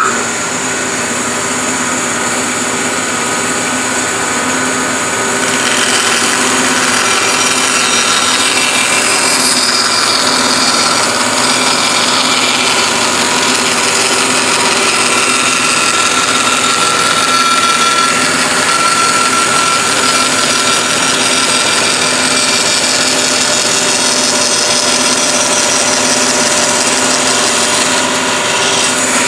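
Bandsaw running steadily with a constant motor hum. From about five seconds in, the blade cuts slots into wood, adding a rising and falling hiss of sawing.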